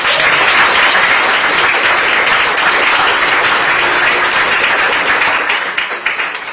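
Audience applauding, loud and steady, thinning out near the end.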